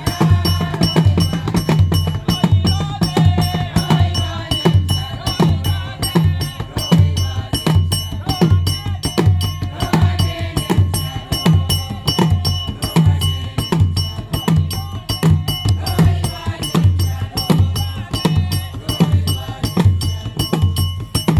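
Church choir music: voices singing over drums and hand percussion keeping a steady, fast beat.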